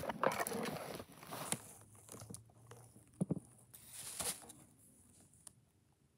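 Rustling and handling noise from hands moving paper cutouts and a silicone pop-it keychain right next to the microphone, heaviest in the first two seconds, with a few light knocks around three and four seconds in.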